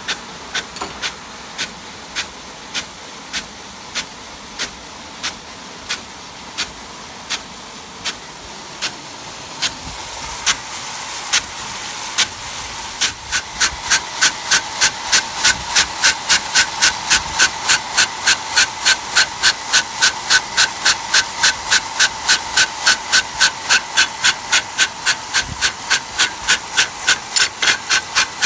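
Nelson SR150 big gun sprinkler running: its drive arm clacks in a steady rhythm as it is knocked in and out of the water stream, over the constant hiss of the jet. The clacks come about one and a half a second at first, then about three a second from about halfway on, when the hiss is also louder.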